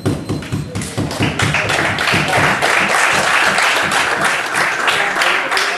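Spectators applauding: dense hand clapping that grows fuller about a second in.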